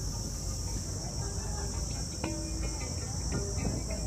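A steady high-pitched insect chorus chirring without a break, over a low background rumble, with a couple of faint knocks about two and three seconds in.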